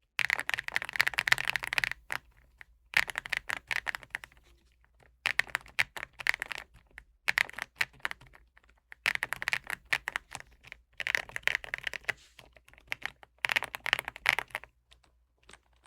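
Redragon K745 Pro mechanical keyboard being typed on in about seven quick bursts of keystrokes with short pauses between, its case dampened by a cork layer over the silicone.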